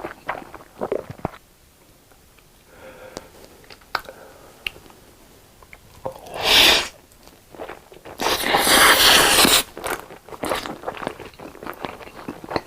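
Close-miked eating: soft mouth clicks and chewing, then two loud crunches of crispy food, the second lasting over a second.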